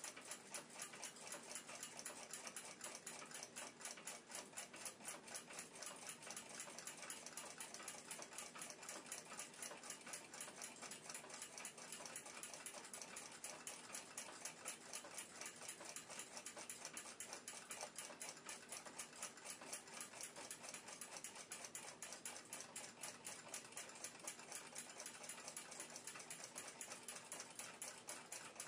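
Mechanical clock ticking steadily and faintly, in an even, quick rhythm.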